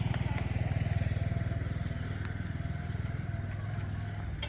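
A small engine running steadily, loudest at the start and slowly fading, with a sharp click near the end.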